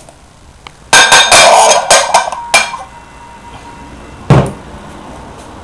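Metal parts clanking: a large sprocket and its hub bolts being handled, with a quick run of metal-on-metal clatter over about two seconds and a ringing after it. About four seconds in comes one heavier thump.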